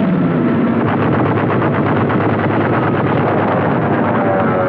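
Aircraft engine noise and rapid machine-gun fire in a loud, dense din; an engine tone falls in pitch near the start and again near the end.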